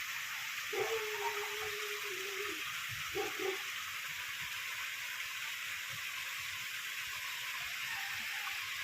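Heavy rain falling in a steady hiss. A person's voice calls out briefly about a second in and again shortly after three seconds.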